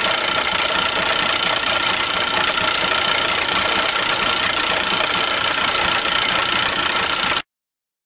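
WF&J Barnes metal lathe running: a steady mechanical hum with fixed high ringing tones, which cuts off abruptly about seven seconds in.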